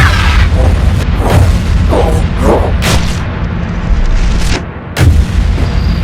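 Cartoon sound effects: a run of booms and bangs over a steady low rumble, with a sharp, loud bang about five seconds in.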